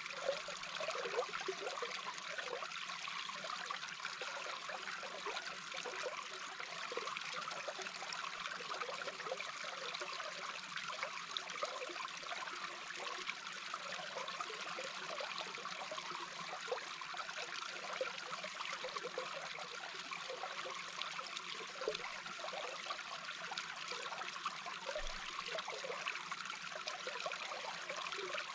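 Small brook heard from underwater: a steady rush of flowing water with many small bubbling blips.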